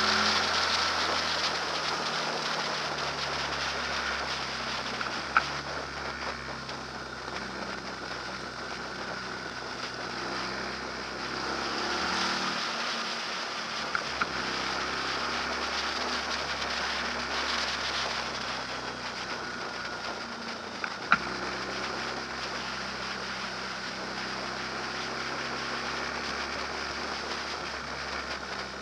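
An engine running steadily under an even hiss, with three short, sharp clicks spread through.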